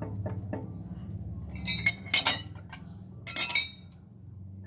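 Heavy steel flywheel clinking and ringing against metal as it is worked off the crankshaft by hand, with a few light knocks in the first second and two loud, ringing clanks about two and three and a half seconds in. A steady low hum runs underneath.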